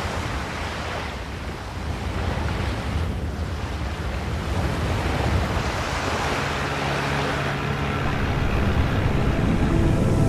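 Sea water rushing and waves washing, a steady noisy wash that grows slowly louder. Low steady tones fade in under it from about six seconds in.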